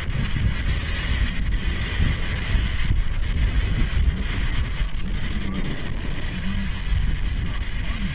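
Wind rushing over the microphone on a moving Honda CB1300 Super Bol d'Or, with the motorcycle's inline-four engine running steadily underneath.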